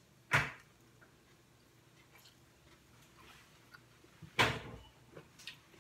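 A person eating by hand, mostly quiet: faint mouth and chewing sounds, with two short noises about half a second in and again about four and a half seconds in.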